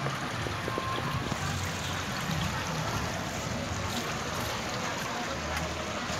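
Steady rush of water from a pool's water feature, with faint crowd voices underneath.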